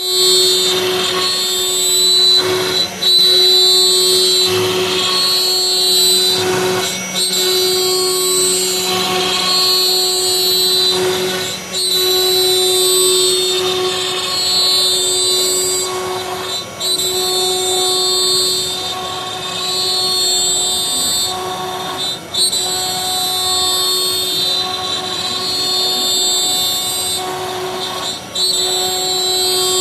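Forest Scientific CNC router running, its motors giving a steady whine of several tones that break off briefly and resume every second or two as the machine moves through its job.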